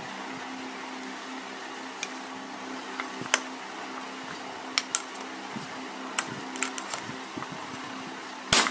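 Scattered light metal clicks and taps as a cooler motor's end cover and its bush are handled and worked with a hand tool, over a steady background hum; a single louder knock comes just before the end.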